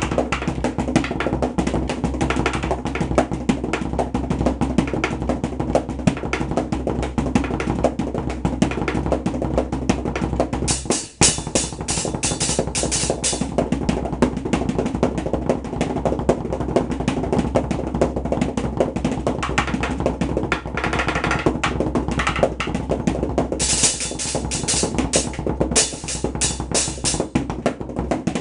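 Homemade drum kit built from trash, such as metal paint cans, played in a fast, busy pattern of continuous hits. There is a brief break a little over a third of the way in, and stretches of bright, hissy crash-like hits just after it and again near the end.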